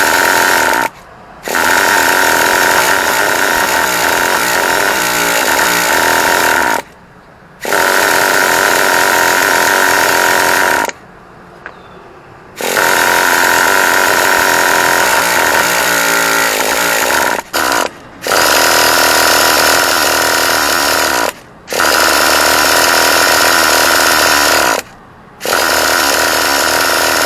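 Traxxas EZ-Start electric starter spinning the T-Maxx's 2.5 cc nitro engine in about seven runs of a few seconds each, with short pauses between, a steady motor whine each time. The engine never fires and runs on its own: a no-start.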